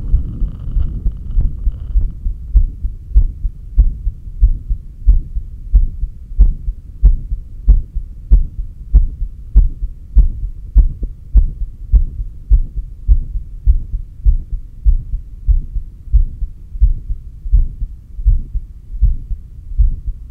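Heartbeat picked up by a stethoscope on the chest over the heart's apex: a steady, regular train of low thumps. A faint hiss sits under the beats for the first two seconds, and after that only the heartbeat is heard.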